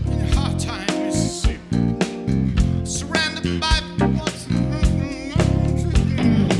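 Live soul band playing a funk groove on electric guitar, bass guitar and drums, with a voice singing over it about halfway through.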